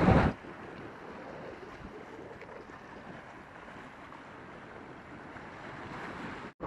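A brief loud gust of wind on the microphone, then a faint, steady wash of small waves breaking on a rocky shoreline, with a short dropout near the end.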